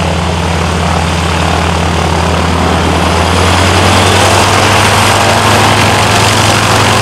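Boeing Stearman PT-17 biplane's 450 hp radial engine and propeller running at taxi power: a steady low drone that grows a little louder about three seconds in as the plane taxis.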